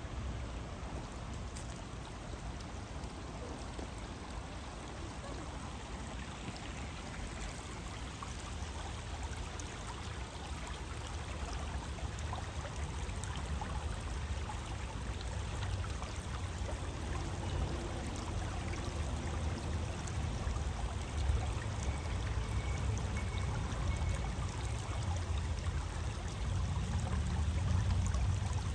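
Stream water flowing in a steady, even rush, over a low rumble that grows slightly louder toward the end.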